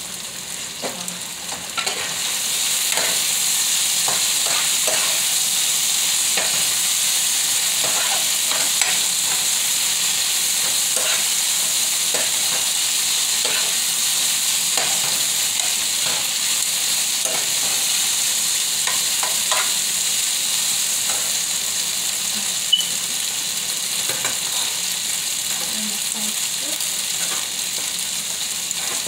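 Strips of beef chuck sizzling in a hot frying pan. The sizzle gets louder about two seconds in, with scattered clicks and scrapes from a metal spoon stirring the meat.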